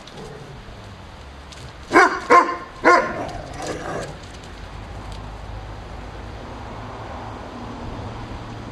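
Bouvier des Flandres barking: three loud, sharp barks in quick succession about two seconds in, followed by a few softer barks.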